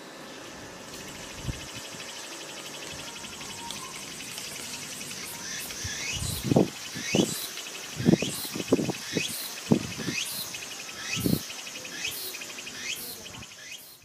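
Insects trilling steadily, with a bird calling loudly over and over from about six seconds in, about a dozen short calls; the sound cuts off suddenly at the end.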